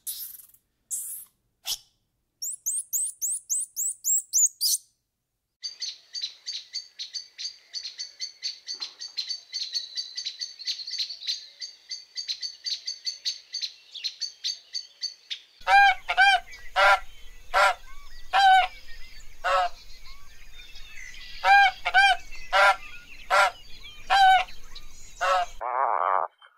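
A string of bird sounds with cuts between them: thin high chirps and quick high trills, then a dense flock chattering for about ten seconds, then a run of loud, repeated calls for the last ten seconds.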